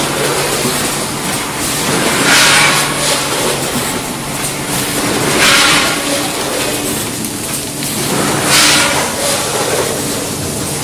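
Vertical form-fill-seal packaging machine with a multi-head weigher running: a steady mechanical hum with a short hissing rush about every three seconds as the machine cycles.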